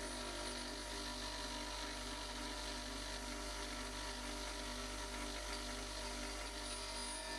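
Off-hand bench grinder running with a steady motor hum, with a faint even hiss above it as the end of an end mill is ground against the wheel in a sharpening fixture.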